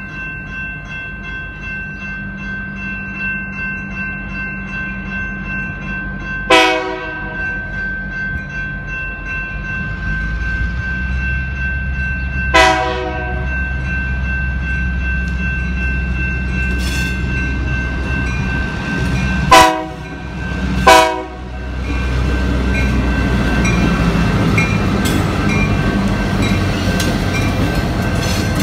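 Railroad crossing's General Signals Type 2 electronic bells ringing steadily as a freight train led by GP38-2 diesel locomotives approaches the crossing. The locomotive horn sounds four short, loud blasts: two about six seconds apart, then two about a second apart. The locomotives' low engine rumble grows from about ten seconds in as the train reaches and enters the crossing.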